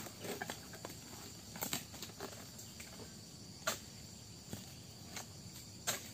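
Scattered light knocks and rustles as a dodos harvesting chisel on a pole is worked against an oil palm's trunk and frond bases. A steady high insect drone runs underneath.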